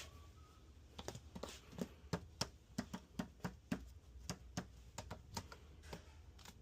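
A run of light clicks and taps, about three or four a second, starting about a second in and easing off near the end, from hand work on a riding mower's engine.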